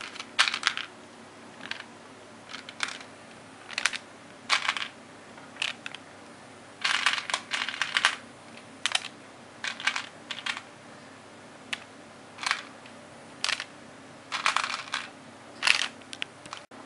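Irregular light clicks and short rattles of M&M's candies being picked out of a bowl and set onto cookie dough, some coming in quick clusters.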